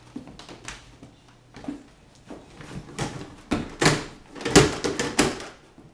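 Irregular plastic knocks and clatter from a toddler's ride-on toy car rolling over a threshold and across a hardwood floor, growing louder and busier about halfway through.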